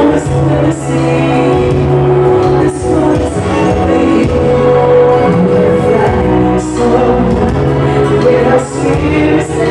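A woman singing live into a microphone over amplified backing music, with long held notes over a sustained bass.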